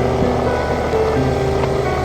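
Background music of slow, held notes, over a steady noise with a low hum underneath.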